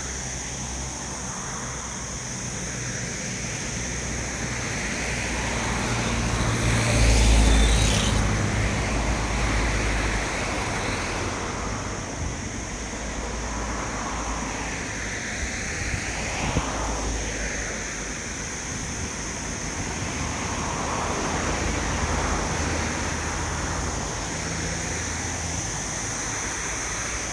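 Outdoor road traffic noise, with a steady high hiss underneath; one vehicle passes close about seven seconds in, its rumble swelling and fading.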